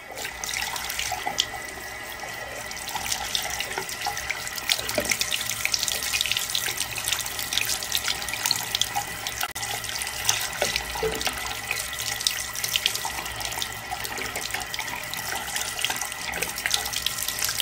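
A tap running steadily into a sink, its stream falling over a cupped hand.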